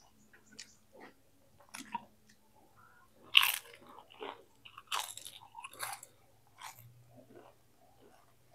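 Close-up crunchy bites and chewing of fried tempeh. A few sharp crunches, the loudest about three and a half seconds in and several more around five to seven seconds, with quieter chewing between.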